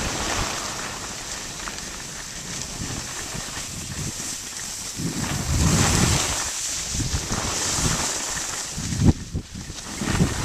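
Wind buffeting the microphone of a moving skier, with the hiss of skis sliding on packed snow. The rumble swells in gusts a few seconds in and again near the end.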